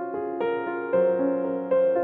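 Gentle background music on a piano-like keyboard: a slow line of held notes, each fading, with a new note entering about every half second.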